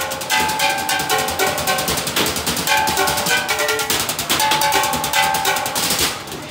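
Trash-can drumming: drumsticks beating fast, dense rhythms on galvanised metal trash cans, their lids and plastic bins, with the metal ringing at several pitches. The drumming stops abruptly about six seconds in.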